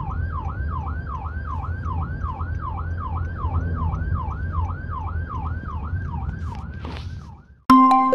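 Police escort car's electronic siren on a fast yelp, about three swoops a second, heard from inside the cabin over a low engine and road rumble. It cuts off suddenly near the end, and an electronic jingle with bell-like notes begins.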